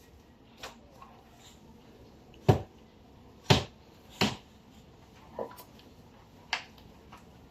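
A series of sharp knocks or taps, about six, irregularly spaced, the two loudest about a second apart near the middle.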